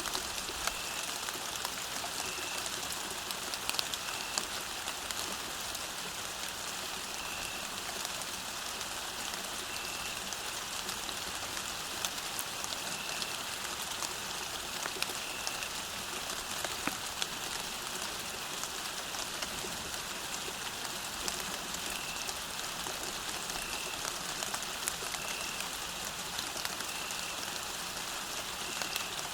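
Steady rain falling on a path: an even hiss with scattered sharp drop ticks. Faint short high notes recur every couple of seconds.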